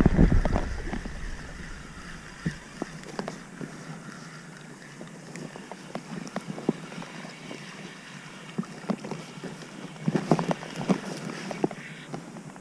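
Wind rumble on the microphone fades in the first second or two. Then come faint, scattered clicks and rustles from a spinning rod and reel being worked, with a denser cluster of clicks near the end as a small pike is reeled in to the bank.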